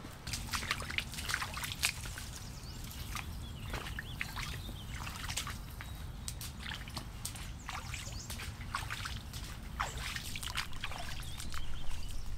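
Hiking boots splashing and sloshing through shallow water that covers a wooden boardwalk, in a run of irregular wet steps.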